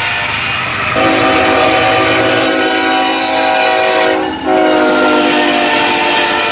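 Diesel freight locomotive air horns sounding loud, sustained chords. The chord changes abruptly about a second in and again about four and a half seconds in, as one locomotive's horn gives way to another's.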